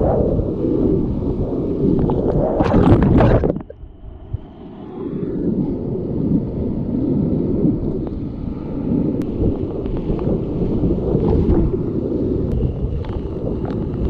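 Whitewater rapids rushing and crashing around a kayak, with water splashing over the boat and onto the microphone. A loud splash comes near three seconds in; then the sound drops away sharply for about a second before the steady rush of the rapids returns.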